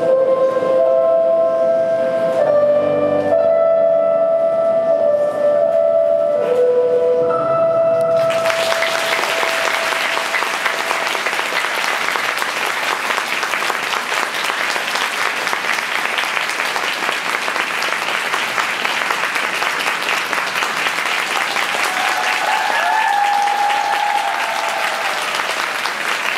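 Instrumental program music with a slow, held melody plays its last notes and stops about eight seconds in; audience applause then fills the rest, with a short cheer over the clapping near the end.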